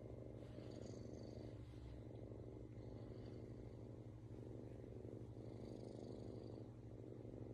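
Domestic cat purring steadily, the purr swelling and easing with each breath about once a second.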